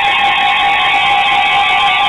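NOAA Weather Radio alert tones: a loud, steady electronic alarm of several held tones, fading out shortly after. It is the alert that comes ahead of a severe thunderstorm warning broadcast.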